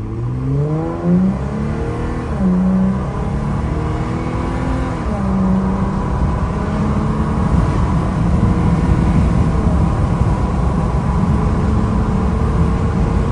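Jeep Gladiator's 3.6-litre V6 through an AWE Trail Edition exhaust, heard from inside the cab, accelerating through the gears of its automatic transmission. The pitch rises and drops at three upshifts in the first five seconds or so, then holds steady at a cruise.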